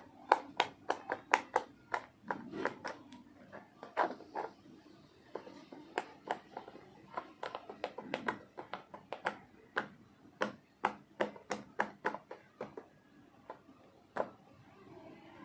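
Silicone pop-it fidget toy bubbles being pressed one after another, each giving a short soft pop ('pusu pusu'). The pops come a few a second in uneven runs, with brief pauses.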